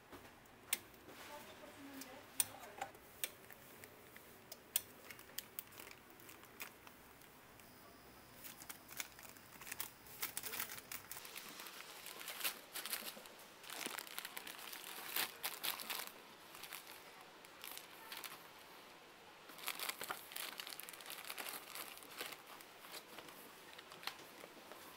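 Crinkling and rustling with sharp clicks: scattered single clicks at first, then denser bursts of crinkling through the middle and again near the end.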